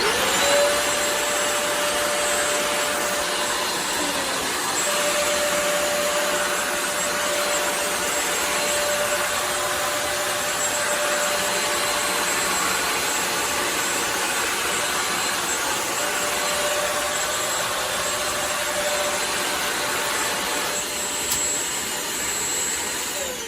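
Bissell CrossWave wet-dry floor cleaner running: a loud, steady motor-and-suction whine with a clear hum in it. It spins up right at the start.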